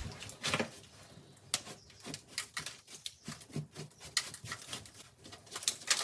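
Short, irregular scraping and tapping strokes of a hand tool working on a plaster wall, a few a second, during a plaster repair.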